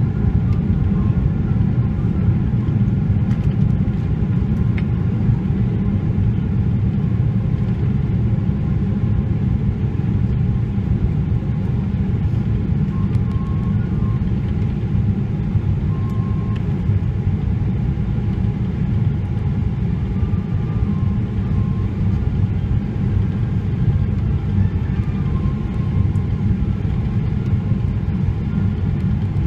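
Cabin noise of a Boeing 777-300ER with GE90 engines in flight: a steady low rumble of engines and airflow heard through the fuselage, with faint steady tones above it.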